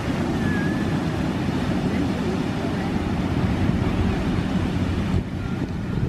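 Wind buffeting the microphone over the steady wash of small waves breaking on the beach.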